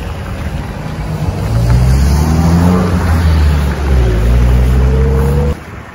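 Car traffic driving past close by: engine and tyre noise swelling about a second and a half in, with engine pitch rising and falling as the cars go by, then cutting off suddenly near the end.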